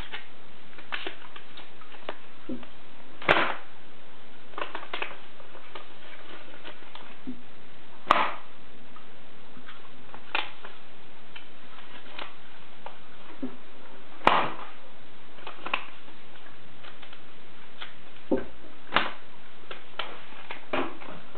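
Origami double-bang paper popper being snapped again and again: sharp pops, the strongest about 3, 8 and 14 seconds in, with fainter paper crackles between.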